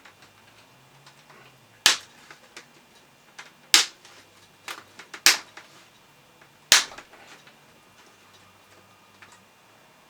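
Plastic snap clips of an Acer Aspire E5-551's screen bezel popping loose as the bezel is pried off the display lid by hand: four loud sharp snaps with smaller clicks between them.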